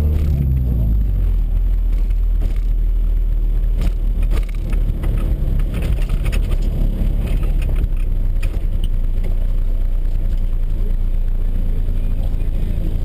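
Honda CR-X's four-cylinder engine heard from inside the cabin, its revs dropping away in the first second, then a low rumble at slow driving speed mixed with road noise and scattered small clicks and rattles.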